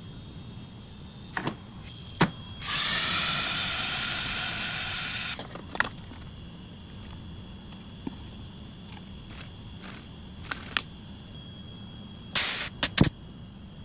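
Pressurised flush through a refrigerator condenser's tubing: a hiss of about two and a half seconds, fading slightly, with a faint whistle in it, as R141b solvent is blown through to clear oil deposits. Scattered clicks and knocks come around it, with a few louder taps near the end.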